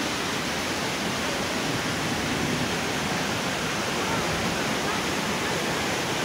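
Steady rush of a swollen, muddy river running high with runoff after heavy rain.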